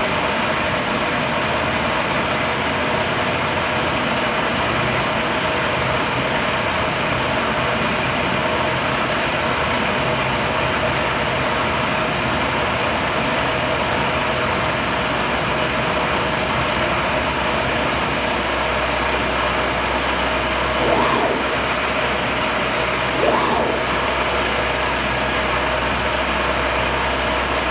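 Universal CNC milling machine running with a steady machine hum. A deeper low hum comes in about two-thirds of the way through, and two short louder sounds follow a couple of seconds apart.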